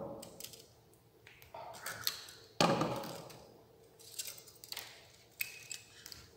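Hands handling wires and small metal parts on a wooden wiring board: a string of light taps and clicks, the loudest a knock about two and a half seconds in, and a short metallic ping about five seconds in.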